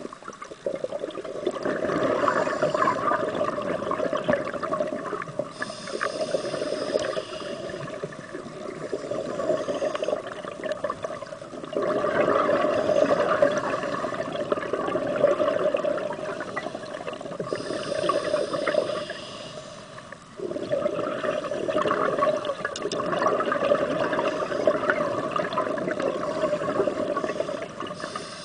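Scuba diver breathing through a regulator underwater: a short hissing inhale followed by a long bubbling exhale, repeating in slow cycles about every ten to twelve seconds.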